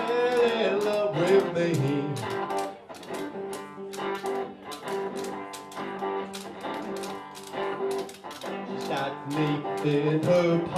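Live song with electric guitar and a washboard scraped and tapped in a steady, even rhythm. A man sings over them in the first couple of seconds and again near the end, with a guitar-and-washboard passage in between.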